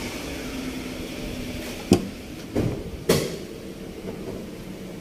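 Three sharp knocks, about two to three seconds in, the first and the last the loudest, over a steady mechanical hum.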